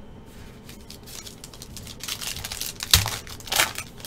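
Foil wrapper of a 2020 Panini Phoenix football card pack crinkling as it is torn open and the cards are slid out. The crackle builds after about a second, with its sharpest crackle about three seconds in.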